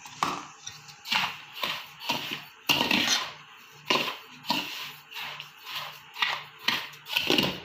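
A spoon stirring and scraping food in a metal cooking vessel, in quick repeated strokes about twice a second.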